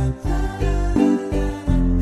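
Background music: a bright, upbeat tune over a bass line that changes note in a steady rhythm.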